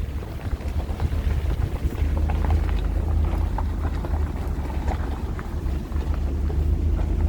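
Steady low rumble of a vehicle driving slowly, with faint ticks and rattles over it.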